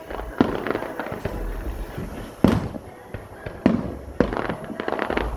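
Fireworks going off: four loud shell bursts with echoing tails, then a quick run of small crackling reports near the end.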